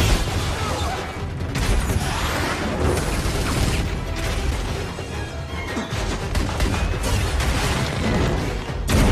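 Action-film fight soundtrack: a music score under a dense mix of energy-blast, crash and impact effects, with a loud hit right at the start and another near the end.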